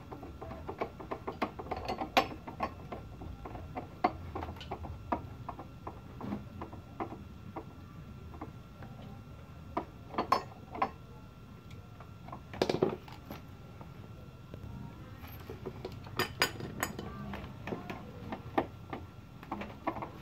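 Small metallic clicks and clinks of a screwdriver and bolts against a steel TV wall-mount bracket as it is screwed onto the back of a TV, with a handful of louder knocks scattered through.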